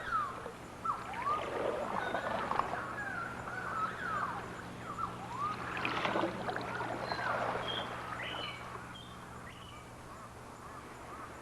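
A chorus of many short, squeaky animal squawks and chirps, each a quick falling-then-rising call, dying down after about eight seconds.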